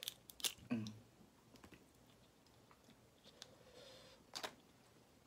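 Crayfish shell being cracked and pulled apart by hand, giving a few sharp clicks and snaps, with a brief low vocal hum just before one second in.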